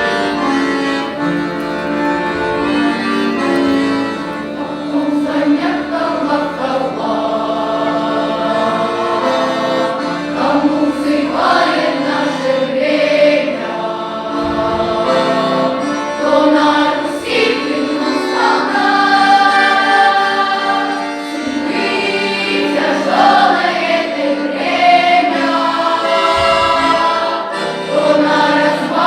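A children's and youth folk-song choir singing, its voice parts holding long notes together.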